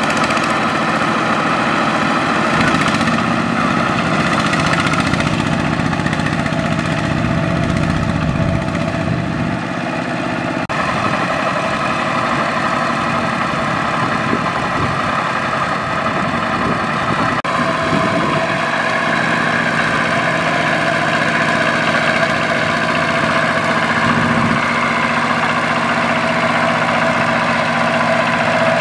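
Single-cylinder diesel engine of a two-wheel walking tractor running steadily under load as it hauls a loaded trailer through deep paddy mud. The engine sound shifts abruptly twice, about ten and seventeen seconds in.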